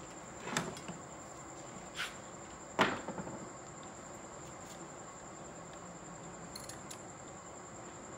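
A few light knocks and clatters of hands handling an amplifier board and a soldering gun, the loudest a little under three seconds in, over a steady high-pitched whine.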